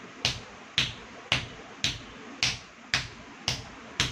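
Bare feet stamping on a tiled floor in steady Bharatanatyam-style footwork, about two sharp stamps a second.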